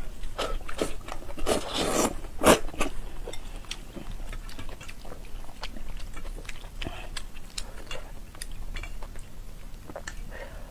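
Close-miked eating of saucy glass noodles: slurping mouthfuls and wet chewing with many small mouth clicks, loudest about two seconds in.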